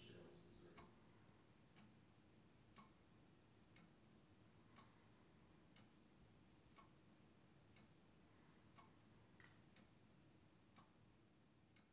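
Clock ticking faintly, about once a second, over quiet room tone with a low hum.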